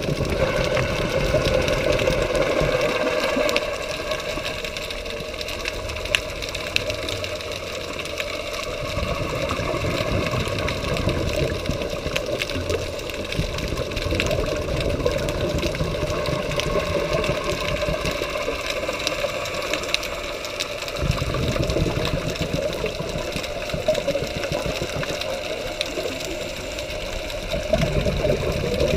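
Underwater sound heard through a camera housing: a scuba diver's regulator breathing, with a low rumble of exhaled bubbles about every six seconds over a steady hum.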